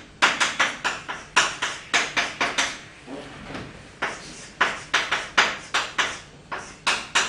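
Chalk writing on a blackboard: a quick run of sharp taps and scratches as each stroke of the characters goes down, with a pause of about a second and a half near the middle.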